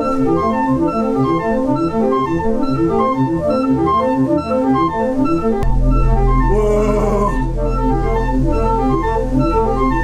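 Organ music: a quick, repeating run of notes, joined about five and a half seconds in by a deep held bass note.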